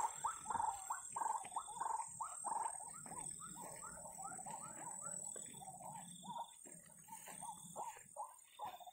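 An animal calling over and over: short hooked calls, two or three a second, growing fainter and sparser after about six seconds. A steady high drone of insects lies under them.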